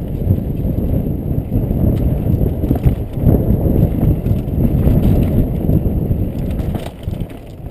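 Mountain bike rolling fast down a dirt and rock singletrack, heard from a helmet-mounted camera: a dense low rumble of tyres, bike rattle and wind on the microphone, with a couple of sharp knocks over rocks. It eases a little near the end.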